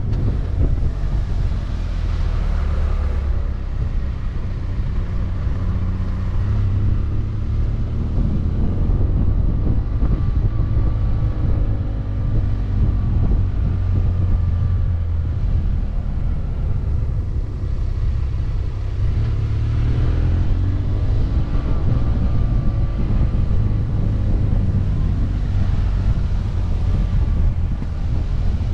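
BMW F800GT motorcycle's parallel-twin engine running on a mountain climb, its pitch rising and falling several times as it accelerates and slows through the bends, over a steady low rumble of wind and road.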